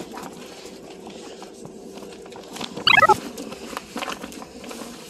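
Inside a Mugunghwa passenger train carriage: a steady low hum with scattered small knocks and handling rustles, and one loud, short squeal falling steeply in pitch about three seconds in.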